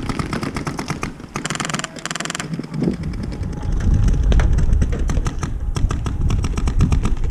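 Airsoft gun fire: two short full-auto bursts of very rapid clicking shots about a second and a half in. Under them runs a steady low rumble of wind and handling noise on the microphone, with scattered clicks.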